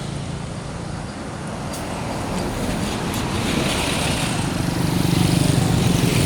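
Road traffic: a motor vehicle's engine and tyre noise grow steadily louder as it approaches, loudest near the end.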